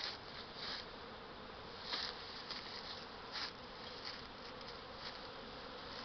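A swarm of honey bees buzzing in the air just after being knocked from its branch: a steady, even hum, with a few brief soft rustles.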